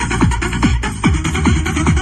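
Loud electronic dance music, techno-style, with a rapid run of falling bass notes about four or five a second, played through a paredão car sound wall.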